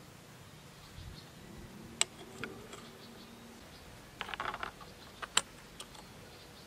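Small clicks and light clatter of plastic and metal trimmer-head parts handled by hand while they are fitted onto a brushcutter shaft. There are two sharp clicks, about two seconds in and about five seconds in, and a short rattle of small clicks about four seconds in.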